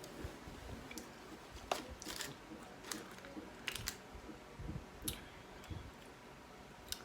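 Close-miked eating sounds: chewing with scattered short, crisp clicks and mouth smacks.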